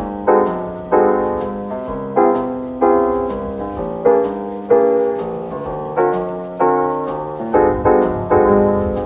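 Background music: piano chords struck in a steady rhythm, each fading before the next, with a low bass line coming in near the end.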